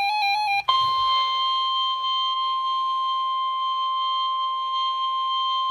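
The tail of a weather-radio SAME digital header burst, a rapid warbling data chirp, cuts off under a second in. It is followed by the NOAA Weather Radio warning alarm tone: a single steady high tone of about 1050 Hz, held without a break, that signals an urgent weather warning is about to be read.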